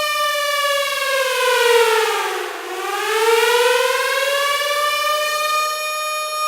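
Outdoor civil-defense warning siren wailing, the signal to take shelter: its pitch slides down to a low point about two and a half seconds in, then climbs back up and holds high.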